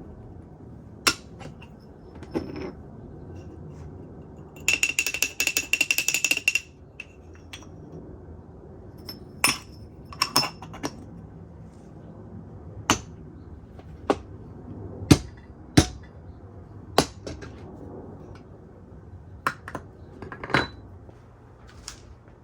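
Sharp clinks and knocks of hard coffee-making gear being handled and set down, with a quick rattling run of about two seconds, with a ringing tone, near five seconds in, and single knocks spaced through the rest.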